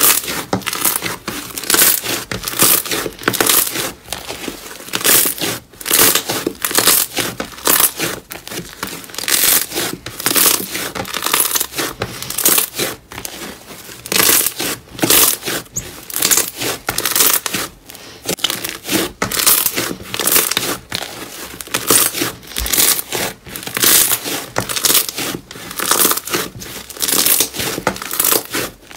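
Thick white slime squeezed and folded by hand, giving a run of short crackles and squelches about one to two a second as it is pressed.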